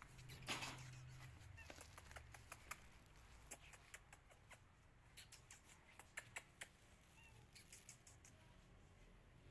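Near silence with faint, scattered clicks and light taps, and a brief rustle about half a second in.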